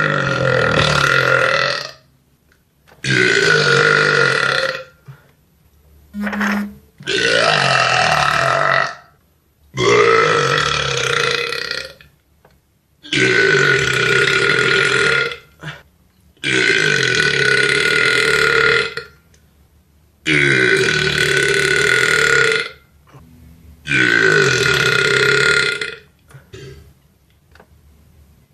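A man belching loudly, about eight long drawn-out burps one after another, each lasting around two seconds, with short pauses between them and a couple of brief burps in the gaps.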